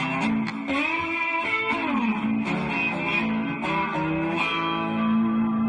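Intro music played on electric guitar, with bending notes that settle into a held chord near the end.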